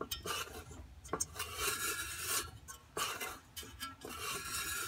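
Stainless-steel agitator and its bolted hardware scraping and clinking against the inside of a metal roaster drum as it is moved by hand: irregular stretches of rasping metal-on-metal rubbing with a few sharp clicks.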